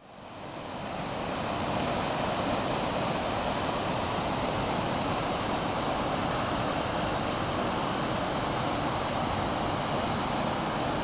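Steady rushing roar of a waterfall, fading in at the start and then holding even.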